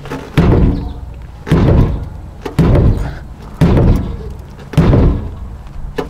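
A Dodge Dakota's fuel tank being beaten on from underneath: six loud thuds, about one a second. It is a tap test meant to jar a dead in-tank fuel pump, whose circuit reads open with no current flow, into running.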